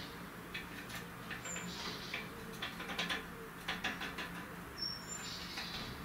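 Eurasian blue tit moving on a wooden perch: a run of light, quick taps and scratches, densest in the middle, with two or three very brief high chirps.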